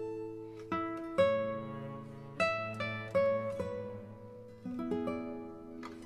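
Background music played on a plucked acoustic guitar: single picked notes, each struck sharply and left to ring and fade.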